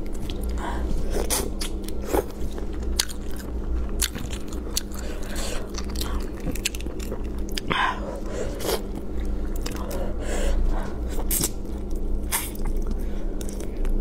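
Crawfish peeled by hand and eaten: irregular sharp cracks and crunches of shell, with chewing.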